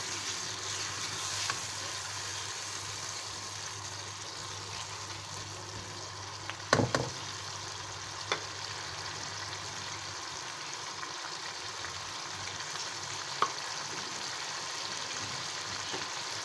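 Chicken and tomato masala sizzling steadily in a wok after a splash of water is added during frying, so the spices don't stick. A few sharp knocks are heard, the loudest about seven seconds in.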